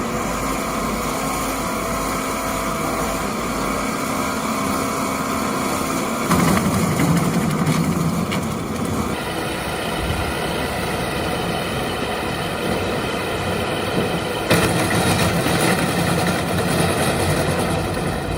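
Engine-driven wood-processing machinery running steadily, its sound changing abruptly three times.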